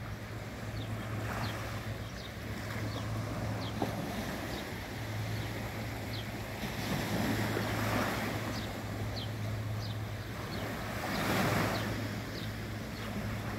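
Small sea waves washing onto the beach, the surf swelling twice, midway through and near the end. A steady low hum and faint, short high chirps repeating every half second or so sit underneath.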